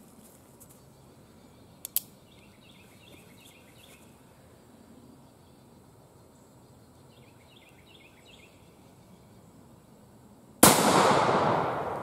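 A single shot from an Uberti 1858 Remington black-powder cap-and-ball revolver. It is a loud, sudden report near the end, with a long ringing decay that trails away over more than a second.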